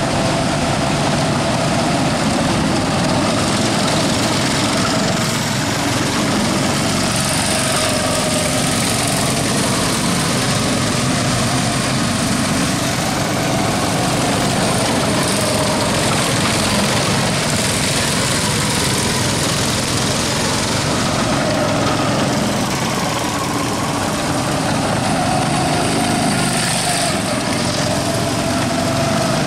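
Small gasoline go-kart engine running, its pitch rising and falling as it speeds up and slows.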